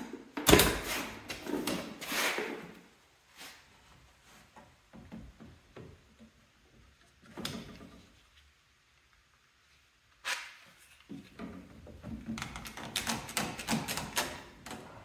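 Knocks, clunks and rattling of tools and parts being handled: a cluster in the first two or three seconds, a single knock about halfway, and a run of quick clatters over the last few seconds.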